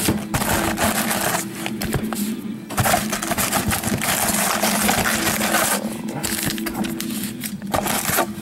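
Crinkling and rustling of trading-card packaging, the plastic and foil wrappers and cardboard of a baseball card box, being torn open and handled in fits and starts with brief pauses, over a steady low electrical hum.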